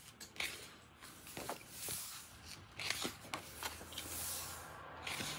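Pages of a large hardcover book being turned, with soft paper rustles and a hand brushing over the paper.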